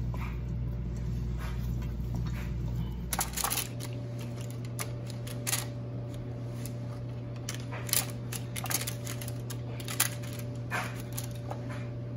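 Hands handling raw, oiled potato strips. The first few seconds are mostly a steady hum. After that come irregular light taps and crinkles as the strips are laid one by one onto a parchment-lined baking tray, over the same hum.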